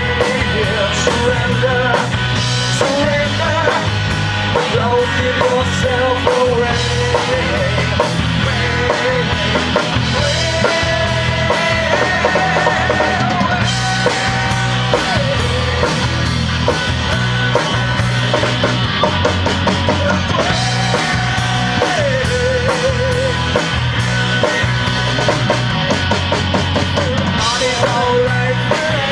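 Live rock band playing through a PA: drum kit, bass and electric guitar, with held, wavering melody notes on top.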